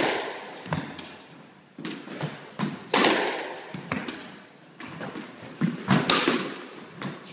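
Squash ball being hit with a racket and striking the court walls: a series of sharp cracks and thuds, each ringing in the enclosed court, loudest at the start, about three seconds in and about six seconds in.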